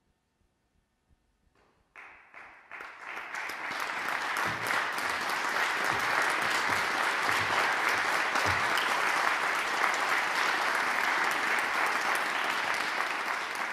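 After about two seconds of near silence, an audience breaks into applause: a few first claps swell within a second or two into steady, dense clapping.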